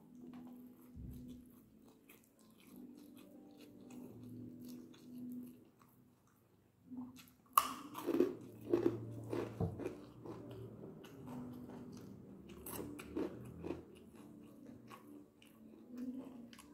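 Close-up eating sounds of a person chewing soft string hoppers (idiyappam) with curry: wet chewing, lip smacks and clicks. Faint at first over a low steady hum, louder from about halfway through.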